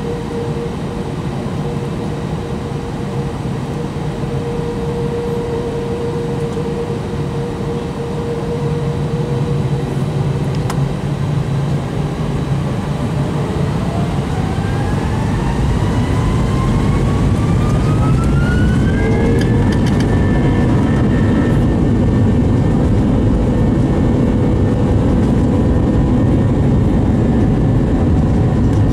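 An Airbus A320's IAE V2500 turbofan, heard from inside the cabin beside the engine, spools up for takeoff. A steady hum gives way about halfway through to a whine that rises for several seconds and levels off. The engine then runs loud and steady with its buzzsaw drone.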